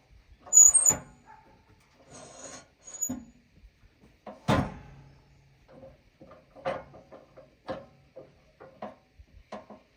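A birch log being turned by hand on the sawmill bed: wood rubbing and scraping, one heavy thump about four and a half seconds in, then a string of short knocks.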